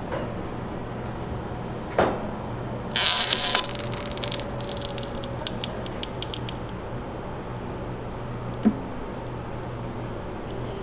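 Ice cream press machine working: a click, then about three seconds in a short burst of hissing followed by a few seconds of crackling as it pushes the ice cream down through the rose-shaped nozzle. A steady low hum underneath, and another click near the end.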